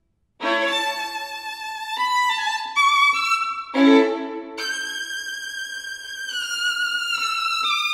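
Unaccompanied solo violin in a virtuoso piece. After a brief silence it comes in with a sharp attack and plays a quick passage, strikes a loud chord about four seconds in, then holds high notes with vibrato.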